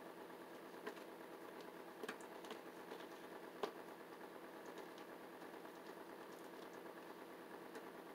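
Faint, irregular clicks and taps as a Yorkshire terrier feeds from a shallow bowl, about a dozen over the stretch with the sharpest one a little past three and a half seconds in. Under them runs a steady mechanical hum.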